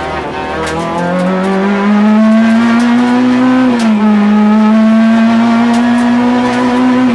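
Peugeot 106 Kit Car's four-cylinder engine heard from inside the cockpit, revving high under hard acceleration on a rally stage. The pitch climbs over the first second and a half, dips about four seconds in as if on an upshift, then rises again; a few sharp clicks sound over it.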